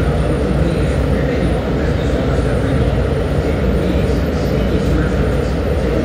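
Industrial annealing furnace firing: a loud, deep, steady rumble of its burners and combustion air.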